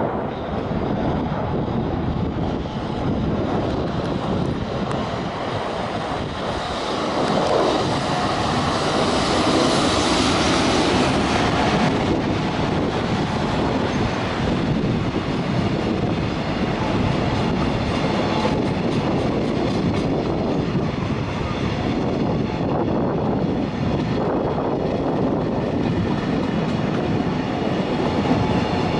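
JR Freight EF210 electric locomotive hauling a container freight train through the station without stopping, louder about seven seconds in as the locomotive goes by. Then a long steady rumble and clatter of container wagon wheels on the rails.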